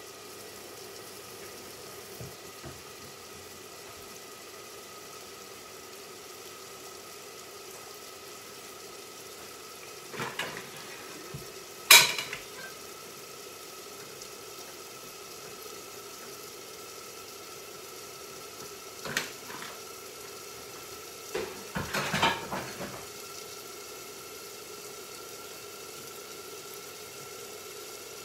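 Dishes and kitchen utensils clattering now and then over a steady hum: a few knocks, one sharp, loud clank midway, and a short run of rattling clatter later on.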